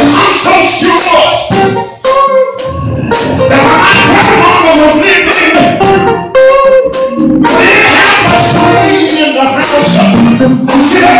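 Live gospel music: a man singing lead through a microphone over a band, with a tambourine-like percussion shaking along.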